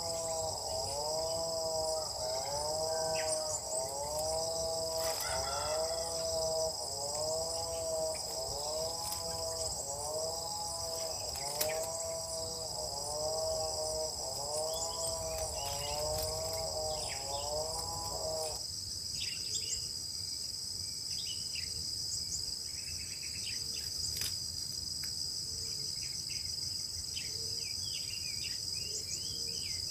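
Steady, high-pitched chorus of insects droning without a break. Over it, a low call that rises and falls in pitch repeats about once a second, then stops abruptly about two-thirds of the way through.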